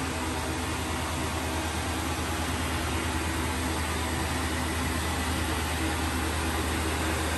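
Blower fan of an Airblown inflatable running: a steady low hum under a constant rush of air.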